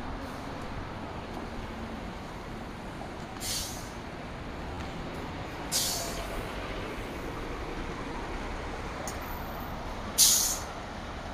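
Steady city traffic noise with three short, sharp air hisses from a city bus's air brakes, the last and loudest near the end.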